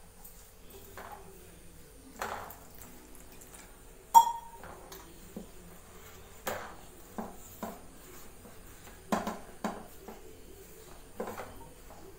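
Flour being mixed by hand in a large steel plate for paratha dough, with scattered knocks and clinks of steel. The loudest is a sharp ringing clink about four seconds in.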